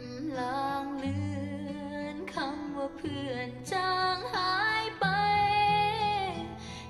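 Thai ballad, a female singer holding long notes with vibrato over a soft instrumental backing.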